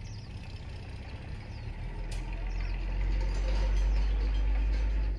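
A motor vehicle running close by, its low rumble building over the first few seconds and cutting off suddenly at the end, with small birds chirping.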